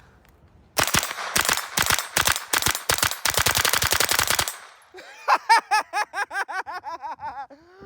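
AR-15 with a CMMG .22 LR conversion kit firing a rapid string of shots through a Franklin Armory binary trigger, which fires on both pull and release. The string starts about a second in and runs for about three and a half seconds. Near the end comes a quick run of short pitched vocal sounds.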